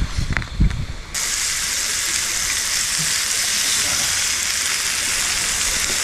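Sliced meat sizzling in a metal pan over a burner: a steady, even hiss that starts abruptly about a second in. Before it there are a couple of soft thumps.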